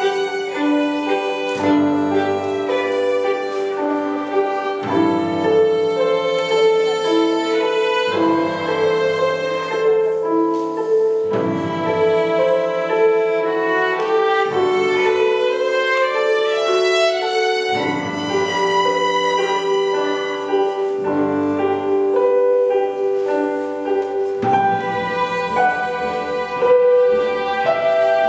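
Ensemble of violins with bass guitar and guitar playing. The violins hold sustained melody notes over a bass line that changes every second or two.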